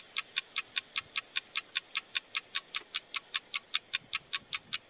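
Fast, even clock-like ticking, about six ticks a second: a ticking sound effect of the kind used to mark time passing.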